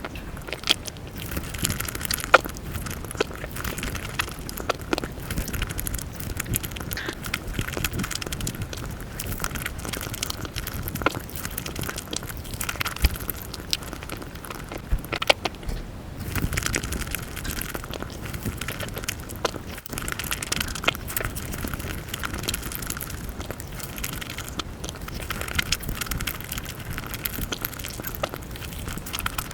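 Eating sounds from a Nutella pancake crepe mukbang: a steady run of chewing and crackling, packed with many quick sharp clicks.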